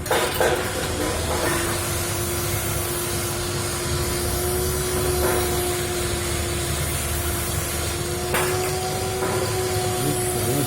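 A machine running steadily: a noisy whir with one held mid-pitched hum, and a light knock about eight seconds in.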